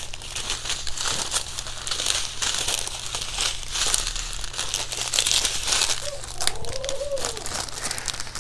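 Plastic packaging crinkling and rustling as it is handled, a dense run of small crackles that goes on without a break.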